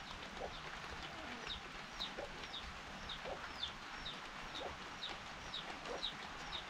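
Chickens: a steady run of short, high, falling peeps, about two to three a second, with faint lower clucks, over a steady hiss.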